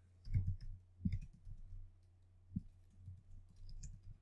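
Computer keyboard keys clicking faintly and irregularly as text is typed, over a low steady hum.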